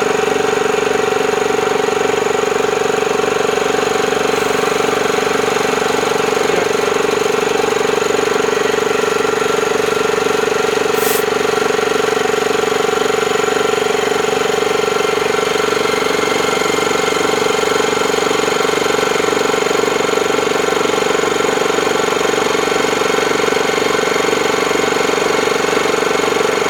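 Bauer high-pressure air compressor running steadily, a loud even hum with a strong steady tone. The bleed valve is shut, so it is building pressure in the line and tank.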